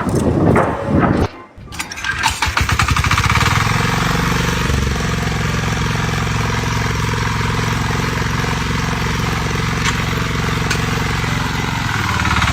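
An engine running steadily, starting after a short break about a second and a half in and shifting its note slightly about five seconds in.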